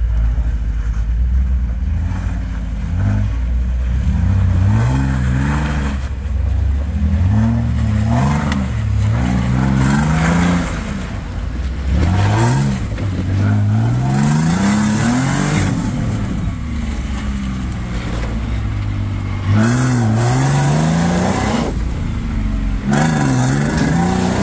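Nissan GQ Patrol's engine revving up and falling back over and over as it crawls up a rocky, rutted climb, with stretches of scrabbling tyre and rock noise between the revs.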